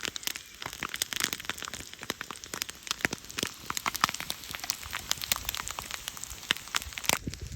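Campfire crackling, with many sharp irregular pops and snaps.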